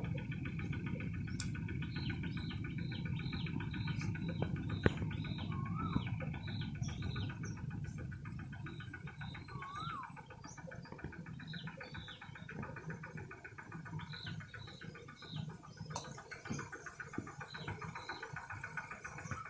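Birds calling: a long run of short, high chirps repeated about twice a second, with a few arching whistled notes, over a steady high drone. A low rumble fades out about halfway through.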